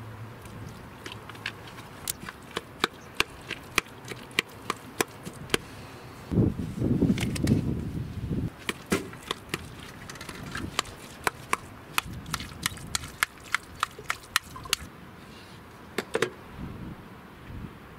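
Kitchen knife chopping on a plastic cutting board: sharp taps about two a second, with a louder low rustle for a couple of seconds about a third of the way in.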